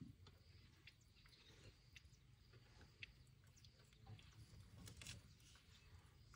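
Very faint, scattered snaps and rustles of a leafy branch as a baby African elephant browses from it with its trunk, over a low background hum.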